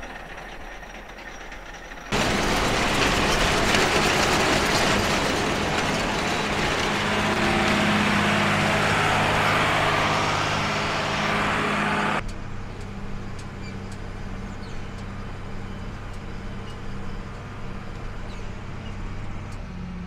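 Tractor engine running steadily with a round baler in tow. From about two seconds in to about twelve seconds in, a much louder, harsher stretch of engine and machinery noise cuts in and out abruptly.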